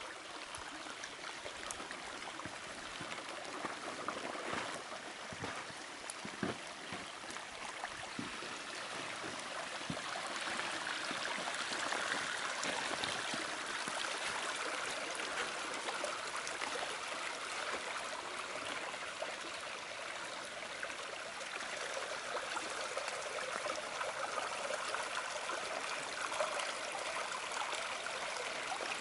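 Shallow woodland creek, swollen with rainwater, rushing and splashing over rocks and gravel in a steady babble. It grows louder about ten seconds in.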